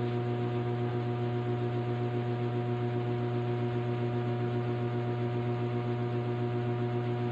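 Steady electrical hum, a low drone with several fainter higher tones above it, unchanging throughout.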